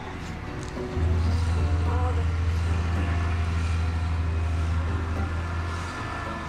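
Case IH Magnum and Quadtrac tractors' diesel engines running under heavy load, pulling a stuck air drill out of the mud: a deep, steady rumble that comes in suddenly about a second in and eases near the end.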